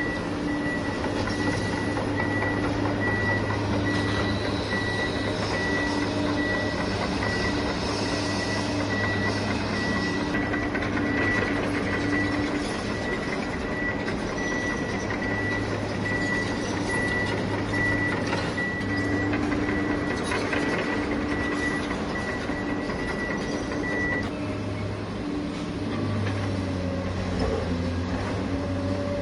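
Reversing alarm of a radio-controlled construction vehicle beeping at an even pace over the steady low hum of the model running. The beeping stops about three quarters of the way through while the hum carries on.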